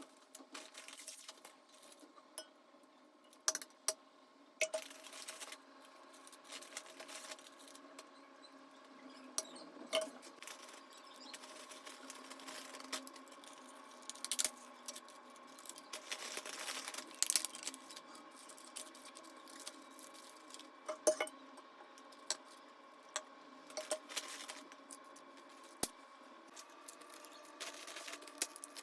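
Kitchen handling sounds: scattered clinks and taps of dishes, glass and utensils being set down and used, with a short stretch of steadier noise partway through.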